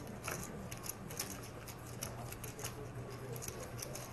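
Poker chips clicking against each other in quick, irregular clicks as players handle their stacks, over a steady low hum.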